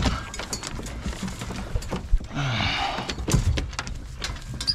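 Hounds scrambling into a metal dog box on a pickup truck: claws and feet clatter and knock on the metal in quick irregular taps. About two and a half seconds in, a hound gives one short cry that falls in pitch.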